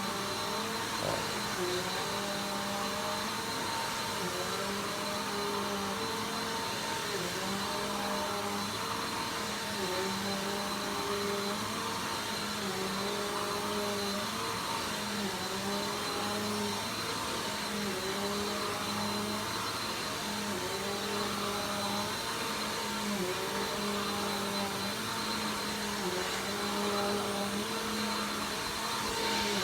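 Vacuum cleaner running steadily with a high whine, its motor pitch dipping briefly every couple of seconds.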